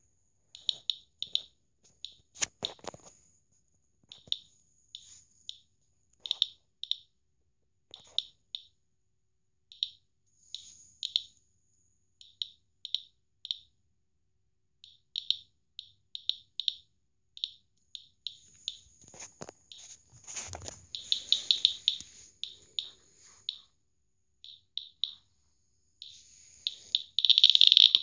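Radiation survey meter's piezo buzzer chirping a short high beep for each detected count, irregularly spaced at a few per second. Near the end the beeps crowd into a near-continuous chatter as the detector probe nears a radioactive source. A couple of handling knocks, about two seconds in and near twenty seconds in.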